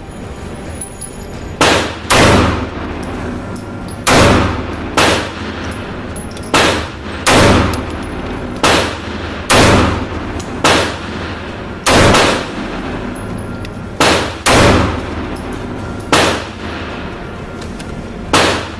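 A series of about fourteen loud gunshots, irregularly spaced between half a second and two seconds apart, each followed by a short echoing tail, over a steady background.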